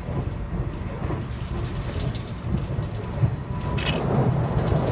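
Running noise of an express passenger train heard from inside a coach: a steady rumble of wheels on rail. Near the end there is one sharp clack, and the rumble grows louder as the train runs onto a steel truss bridge.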